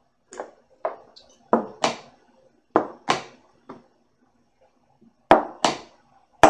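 Quick, sharp clacks of plastic chess pieces being set down on a roll-up board and hands pressing a chess clock in rapid bullet play, about ten knocks, several in pairs a third of a second apart as a move is followed by a press of the clock.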